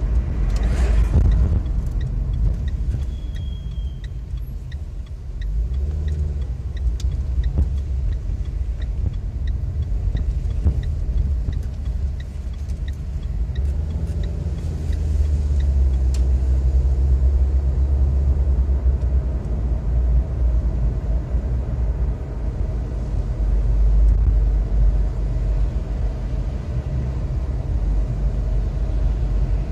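A car driving in city traffic, heard from inside the cabin: a steady low rumble of engine and tyres on the road that swells and eases a little with the driving.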